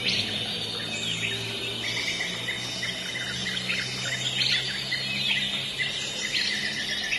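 Small birds chirping in many quick, repeated notes, over a steady low hum.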